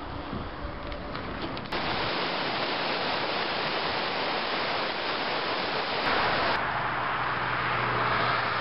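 Steady rush of a mountain stream cascading over rocks, cutting in abruptly about two seconds in. About six seconds in it switches abruptly to a duller steady rushing noise with a low hum.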